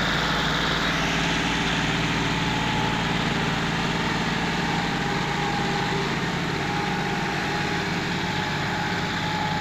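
John Deere tractors' diesel engines running steadily under load as they pull a heavily loaded trailer through deep sand.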